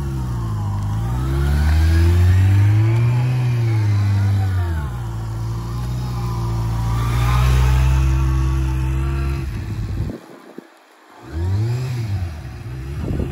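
2019 Kawasaki Ninja ZX-6R's inline-four engine running at low speed during a slow full-lock turn. Its note swells up and falls back several times as the throttle is worked against a slipping clutch. The sound drops away briefly about ten seconds in, then comes back rising.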